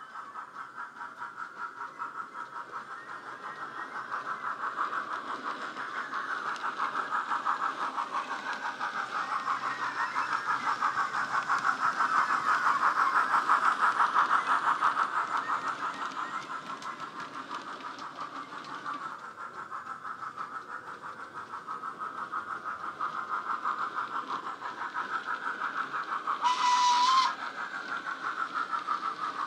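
Digital steam sound of an LNWR Precedent Class locomotive from a Wheeltappers LokSound DCC sound file, played through the model's built-in speaker: steady rhythmic exhaust chuffs that grow louder as the model passes close and fade as it runs away. A short whistle blast sounds near the end.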